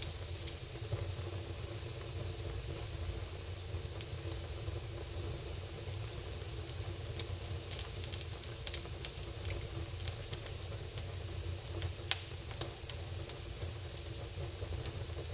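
Wood fire crackling in a fireplace: a steady low rumble and hiss with scattered sharp pops, a cluster of them past the middle and one loud pop near the end.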